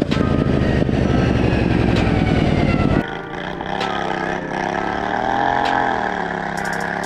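Racing riding mower's engine running loud at speed, heard up close from the seat. About three seconds in, it cuts to a quieter small engine heard from farther off, its pitch rising and falling.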